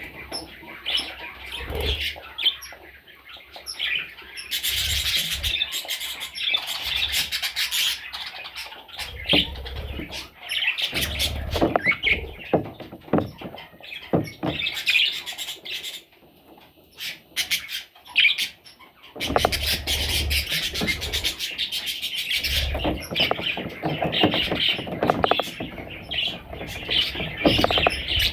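Budgerigar chicks chirping in rapid, repeated cheeps, with scattered clicks and low knocks, and a short quieter gap about two-thirds of the way through.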